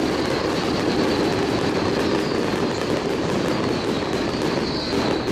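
Fireworks bursting and crackling in a continuous dense rattle and rumble.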